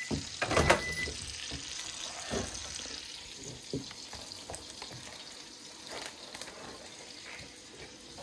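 Steak sizzling in butter in a frying pan. Near the start a microwave beeps with a steady high tone lasting about a second, and a few clunks follow as it is opened and a tray is taken out.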